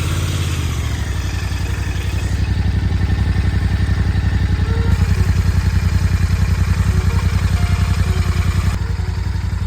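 Royal Enfield Continental GT 650's 648 cc parallel-twin engine idling steadily through its stock exhaust, with an even, low, pulsing beat.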